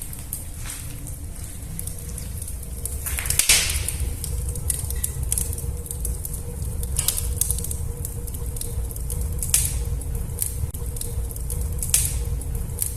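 Wood fire burning in a closed fireplace insert, drawing well: a steady low rumble with occasional sharp crackles, the loudest about three and a half seconds in.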